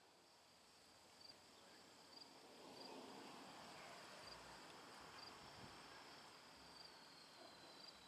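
Faint outdoor ambience with a steady high-pitched insect trill, like crickets, pulsing at regular intervals.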